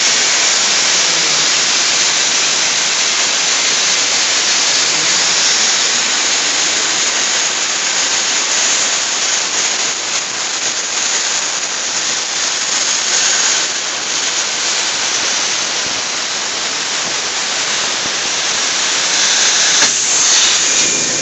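CNC plasma cutter's torch cutting sheet metal: a loud, steady hiss of the plasma arc and its air jet.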